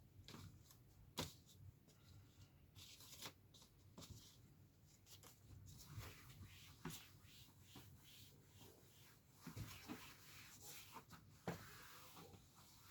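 Faint rubbing and handling noises with scattered light clicks and taps, two sharper clicks about a second in and near the end.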